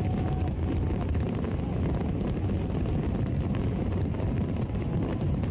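Fireworks going off in a continuous barrage: a steady low rumble of bursts with many small crackling pops, and a few faint whistles.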